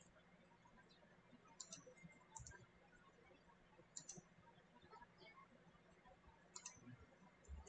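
Faint computer mouse clicks, four or five, spaced irregularly, over a quiet room with a low steady hum.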